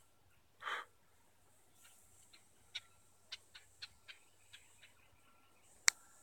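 One short harsh bird call about a second in, then sparse light clicks and crackles of footsteps in dry undergrowth.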